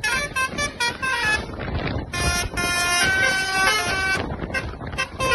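Bus telolet horn of the Basuri type playing a tune of held, stepping notes. The tune breaks off about a second and a half in, resumes, and ends in short toots near the end.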